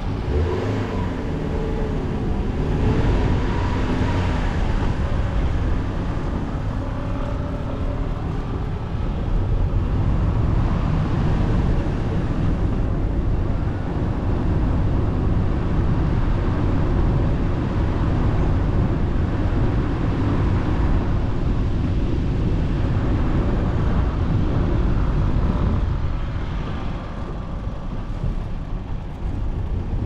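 A car driving along a road, heard from a camera mounted on its bonnet: a steady rumble of engine, tyres and wind on the microphone.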